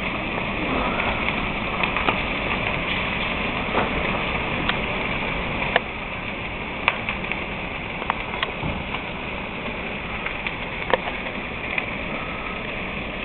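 Townhouses fully engulfed in fire burning: a steady rush of noise with irregular sharp cracks and pops from the burning timber.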